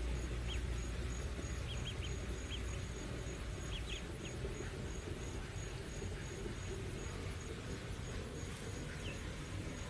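Ducklings peeping: short, high, scattered peeps, several in quick succession around two and four seconds in. Behind them runs a low outdoor rumble and a faint high pulsing chirp about twice a second.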